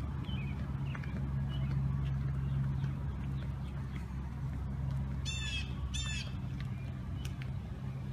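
A bird gives two short calls about half a second apart, roughly five seconds in, over faint scattered chirps of small birds and a steady low rumble.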